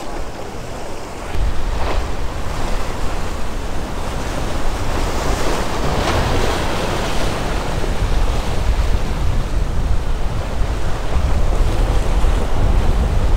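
Surf breaking and washing against the boulders of a rock jetty, with wind buffeting the microphone as a low rumble; one wave surges louder about halfway through.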